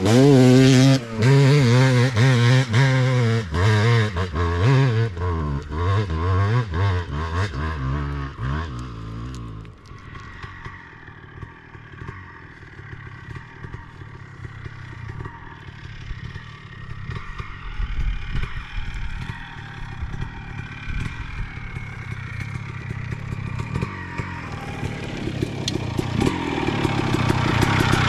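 A 2001 Honda CR250R single-cylinder two-stroke engine revving hard on a steep hill climb, its pitch rising and falling quickly for the first nine seconds or so. The sound then drops to a much quieter, low rumble, which grows louder again near the end.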